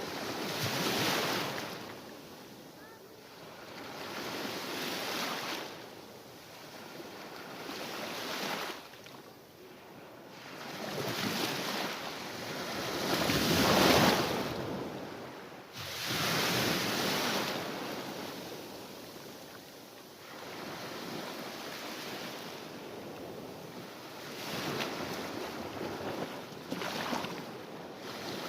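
Mediterranean Sea waves breaking and washing onto the shore, each wave swelling and fading every few seconds, the loudest one about halfway through.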